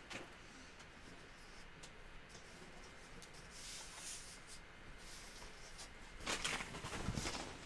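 Faint rustling and scraping of a large poster-board cutout being handled, louder about six seconds in.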